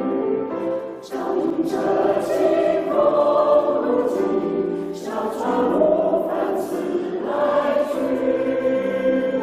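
A choir singing together in held chords that move every second or so. Sibilant consonants of the words cut through several times.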